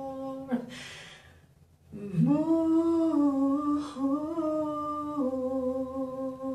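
A man humming a slow tune without accompaniment, in a small tiled bathroom: a held note that ends about half a second in, a short breath, then a second long hummed phrase from about two seconds in.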